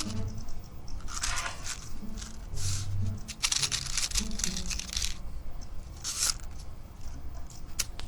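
Matches being struck against a matchbox's striking strip, several separate scrapes that fail to light the match.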